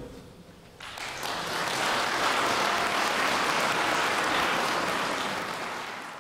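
A brass band's final chord dying away in the hall, then audience applause starting about a second in and fading out near the end.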